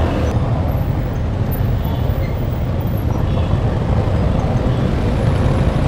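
Yamaha FZ V3's single-cylinder engine running at low speed in slow traffic, a steady low rumble with other motorcycles and vehicles around.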